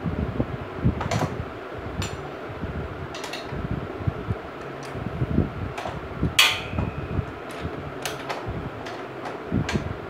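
Metal clicks and clinks of a long wrench bar and socket working the rear axle nut of a Yamaha YBR motorcycle, irregular and spaced out, with one louder ringing clink about six seconds in. A steady fan-like whir runs underneath.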